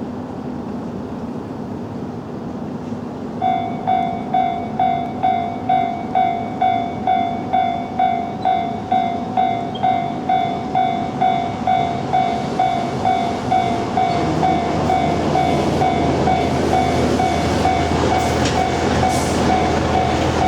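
A Japanese railway level-crossing warning bell starts about three and a half seconds in, sounding its electronic ding at about two strikes a second. From about fourteen seconds the rumble of an approaching electric commuter train builds beneath it, with wheels clicking over rail joints near the end.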